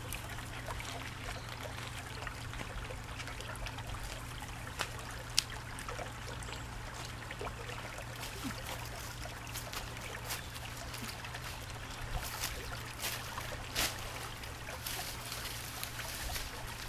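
Shallow creek water trickling steadily over stones, with scattered crackles and rustles from a dry-grass tinder bundle being handled, more of them in the second half.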